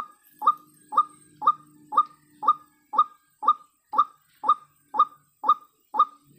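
White-breasted waterhen (ruak-ruak) calling: a short, sharp note repeated evenly about twice a second.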